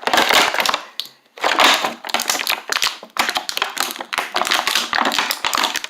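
Stiff plastic toy packaging crackling and clicking in quick irregular bursts as a figure is pried out of its tray, with a short pause about a second in.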